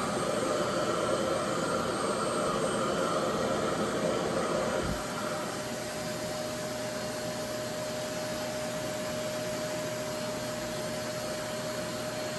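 Revair reverse-air hair dryer running as a steady rushing whoosh of air with a constant hum tone, drying and stretching natural hair. It is a little louder for the first five seconds or so, then settles slightly quieter.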